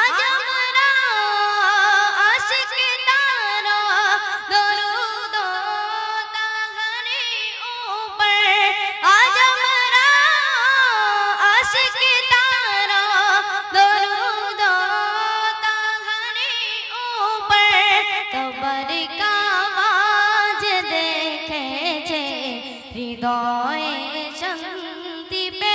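A boy's solo voice singing a Bengali Islamic gojol into a microphone, drawn out in long ornamented runs whose pitch winds up and down.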